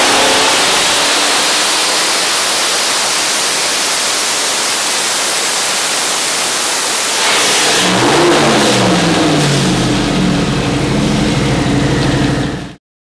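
Twin-turbo 427 cubic-inch LS V8 running at high revs, a loud steady rush. About seven seconds in there is a brief surge, then its pitch falls and wavers as the revs come down, and the sound cuts off abruptly near the end.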